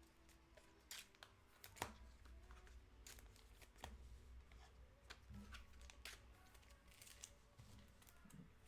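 Faint, scattered rustles and clicks of trading cards and pack wrappers being handled.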